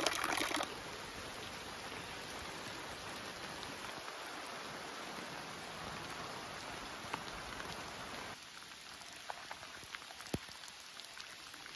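Steady heavy rain falling. About eight seconds in it gets a little quieter, and single drops tick out more clearly.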